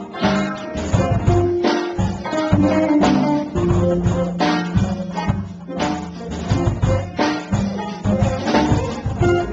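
Live band playing instrumental music: a semi-hollow electric guitar and a Yamaha CS6x synthesizer keyboard over drums, with a steady beat.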